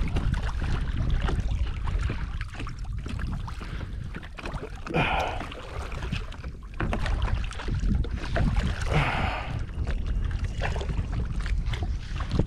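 Wind rumbling on the microphone over open water, with two short splashes, about five and nine seconds in, from a hooked redfish thrashing at the surface beside the kayak.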